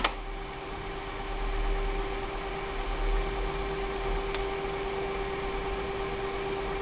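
Aiwa AD-S750 cassette deck playing a blank stretch of tape: steady tape hiss with a low mains hum and a faint steady tone underneath, and a click right at the start.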